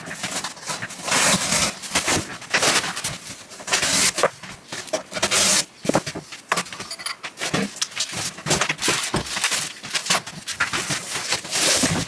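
Cardboard box and packing rustling and scraping in irregular bursts, with sharp knocks, as a boxed machine is pulled out of its packaging by hand.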